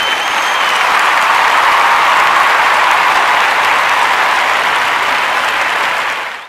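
Audience applauding steadily, with a short whistle near the start. It cuts off abruptly at the end.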